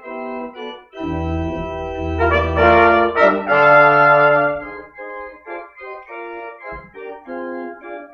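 Church organ and brass ensemble of trumpets and trombones playing music: full held chords with deep bass notes, which give way after about five seconds to softer, shorter notes.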